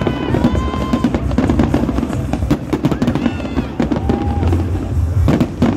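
A fireworks display going off: repeated bangs and crackles over a low rumble, with music playing along.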